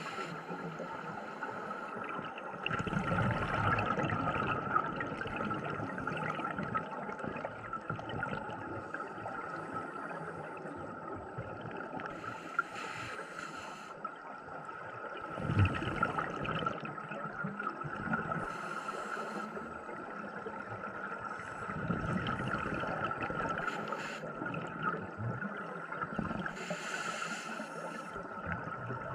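Underwater recording during a scuba dive: a diver's regulator breathing, with a burst of exhaled bubbles every several seconds, over a steady high hum and a low rumbling of water.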